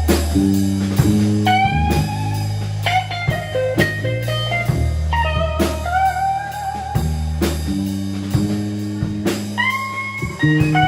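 A live blues-rock trio playing a slow instrumental: an electric guitar lead with bent notes and vibrato over sustained electric bass notes and a drum kit.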